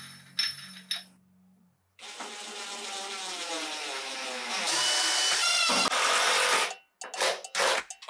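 Cordless drill driving screws through a steel pipe handle's flange into the wood, starting about two seconds in. Its motor pitch rises and wavers under load, then stops near the end, followed by a few light knocks.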